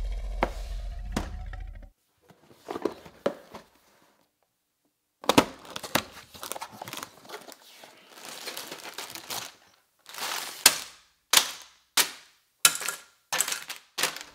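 A roar sound effect fades out at the start. Then a Lego set's cardboard box is torn open at its tabs, with paper and plastic crinkling. Near the end, bags of Lego pieces are dropped one after another onto a table, each a short sharp clatter.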